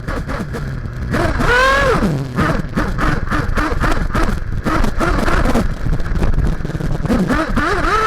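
Nitro engine of a Kyosho MP9 TKI4 1/8-scale buggy (Max Power Storm) revving up and dropping off again and again as it is driven around the track, heard up close from the car. Short knocks from the chassis running over the track are mixed in.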